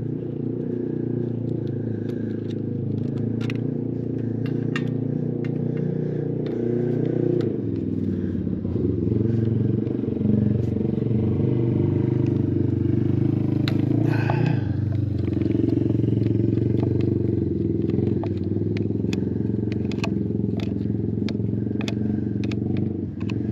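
An engine running steadily, its speed shifting a little about a third of the way in and again midway. Light metallic clicks of hand tools sound over it.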